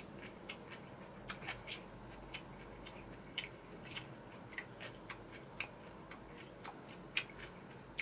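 Close-miked chewing of food: soft, irregular wet mouth clicks and smacks, a few a second.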